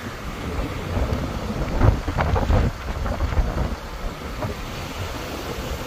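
Low, steady rumble of a 14-wheel truck heard from inside its cab, with a few louder thumps about two seconds in.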